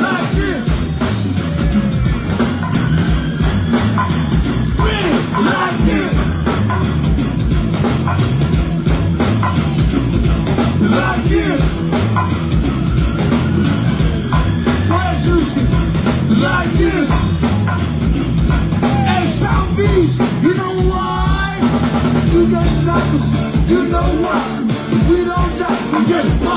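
Live go-go band playing loud through a stage PA: a steady drum and percussion groove with bass and other instruments over it.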